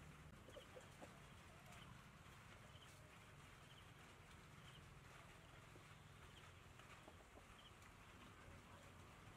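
Near silence with faint, scattered clucks and chirps of chickens.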